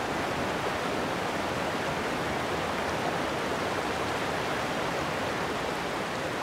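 Waterfall: water pouring over rock ledges into a river pool, a steady rushing with no change.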